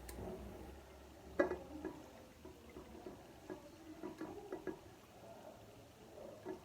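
Faint kitchen handling sounds: a few light clicks and knocks, the sharpest about one and a half seconds in.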